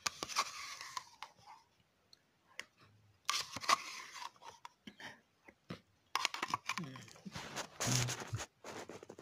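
Metal spoon scraping and clicking inside a plastic yogurt cup as the yogurt is eaten fast, in four scraping bursts with short clicks between.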